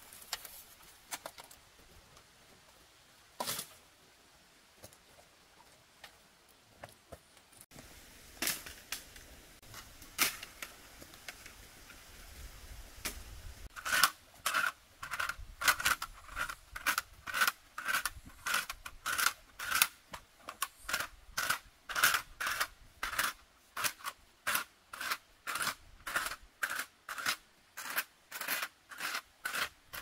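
Sharp knocks, a few scattered at first, then a steady run of about two strikes a second from about halfway through, each with a short ringing tone.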